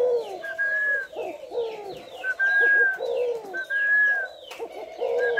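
Male white spotted dove cooing over and over in low, falling phrases: its bow-coo ('gù') call. A clear high whistled note repeats about every second and a half, with small birds chirping faintly behind.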